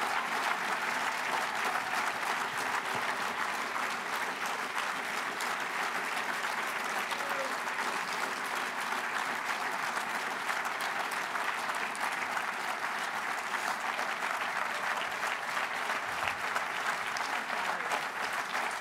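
Large audience applauding steadily: a sustained, unbroken round of clapping.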